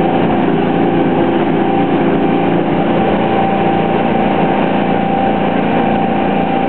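A small fishing boat's inboard engine running steadily at high revs, around 3,000 rpm, heard from inside the wheelhouse.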